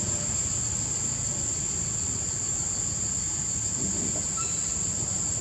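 A steady high-pitched insect drone, one unbroken tone, over a low rumble.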